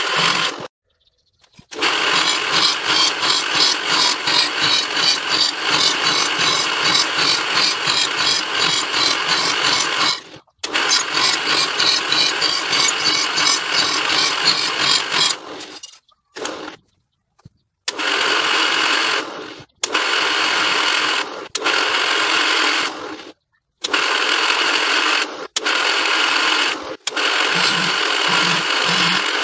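Drilling machine running, its twist drill boring holes in a steel plate with a steady whirring and grinding. The sound comes in several stretches broken by short sudden silences.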